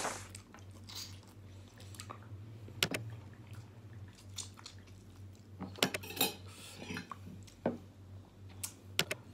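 Metal spoon and fork clinking and scraping against a glass dish and a foil tray of rice, in scattered light clicks, over a faint steady low hum.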